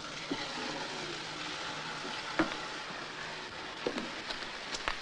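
Steady hiss and crackle of an old film soundtrack, with scattered clicks and one sharper click about halfway through.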